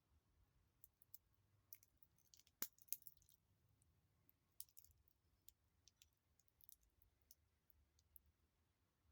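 Faint, irregular clicks and light taps of a stainless steel watch and its packaging being handled, with the sharpest pair about three seconds in.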